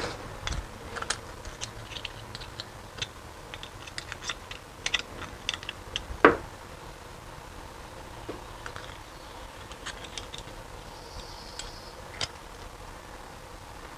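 Light, scattered clicks and taps of a small bent brass sheet part being handled and turned in the fingers, with one louder knock about six seconds in.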